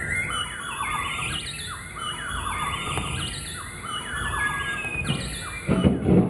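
Electronic noise music: many overlapping squealing tones that dart about and sweep downward in pitch again and again, with a burst of low rumbling near the end.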